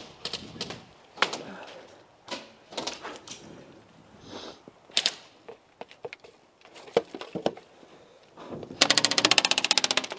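Airsoft gun firing a rapid full-auto burst of about a second near the end, a fast even rattle of shots. Before it, scattered single sharp clicks and knocks.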